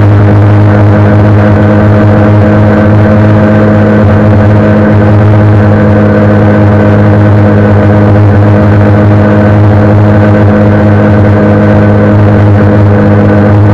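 Honda CBR 125R's single-cylinder engine running at a steady pitch as the motorcycle cruises at constant speed, heard loudly from the rider's position.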